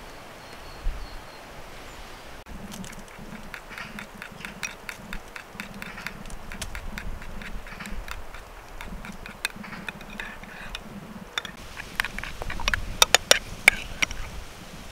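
Metal spoon stirring a thick, creamy salad dressing in a small glass dish: a steady run of small clicks, with louder clinks of the spoon against the glass in the last few seconds.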